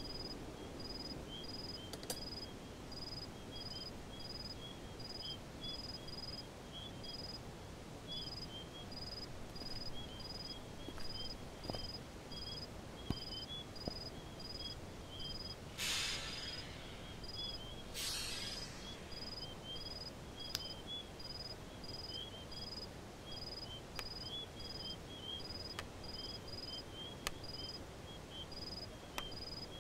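Night ambience of crickets chirping in a steady, even rhythm, with a second insect chirping irregularly beneath it. Midway come two brief swishes about two seconds apart, and faint sharp clicks of wooden chess pieces being set down on the board sound here and there.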